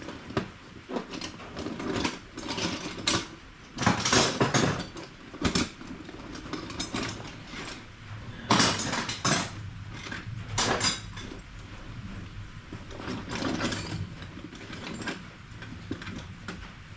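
Metal hand tools clinking and clattering irregularly in a tool bag being rummaged through.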